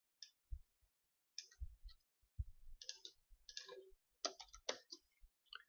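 Faint, irregular clicks and taps of typing on a computer keyboard, with an occasional mouse click, as login details are entered into a form.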